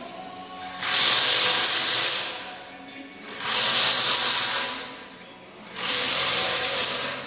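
A workshop power tool running in repeated bursts of about a second, with short pauses between them, about four bursts in all.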